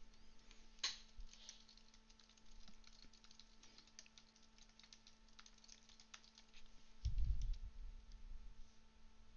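Typing on a computer keyboard: a quick run of keystroke clicks that stops about six and a half seconds in, followed by a brief low thump.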